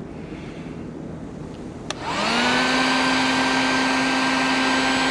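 Harbor Freight heat gun switched on with a click about two seconds in, its fan motor spinning up quickly and then running with a steady hum and rush of air.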